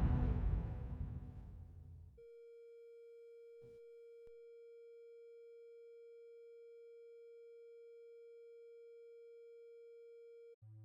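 Music fading out over the first two seconds, then a faint, steady pure tone held for about eight seconds and cut off suddenly near the end: a TimeWaver sound-therapy tone.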